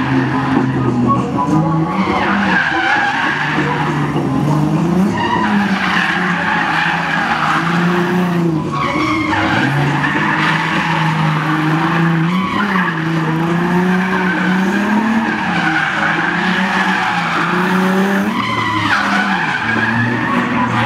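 Drift car sliding sideways through a gymkhana course: its engine revs up and down every second or two while the rear tyres skid and squeal continuously.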